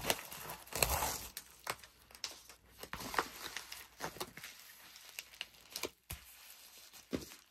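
Pink plastic bubble mailer crinkling and rustling in the hands as its flap is folded over and pressed flat, in uneven crisp rustles and clicks, with a louder rustle about a second in.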